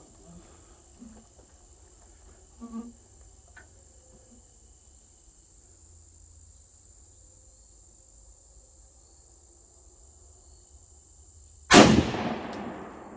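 A single rifle shot from a 6.5 Grendel rifle with a 20-inch barrel, sudden and loud near the end, its echo dying away over about a second. A steady high drone of insects sits underneath.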